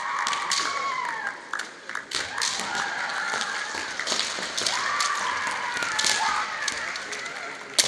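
Kendo players' drawn-out kiai shouts over a string of sharp clacks of bamboo shinai striking and feet stamping on the wooden floor, with a louder crack near the end.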